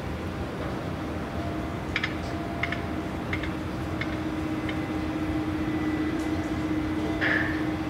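Steady mechanical drone of a gut ship's grab crane machinery at work, heard from a distance, with a hum that grows stronger from about three seconds in. Several sharp metallic clicks come between two and five seconds in, and a short clank sounds near the end.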